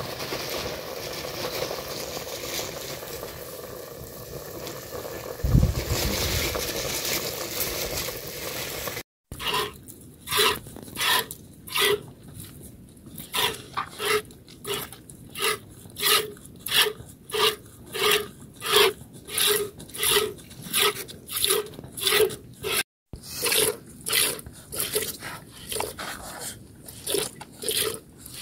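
A cow being hand-milked into a plastic bucket: squirts of milk hit the pail in a steady rhythm, about two a second. For the first third of the stretch there is instead a steady hiss of a pot heating on a wood fire, with one dull thud.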